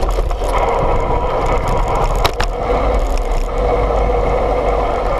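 A BMX bike's tyres rolling on asphalt, a steady road-and-rattle noise with a constant low rumble, heard from a camera mounted on the bike. Two sharp knocks come a little over two seconds in, as from a bump in the road.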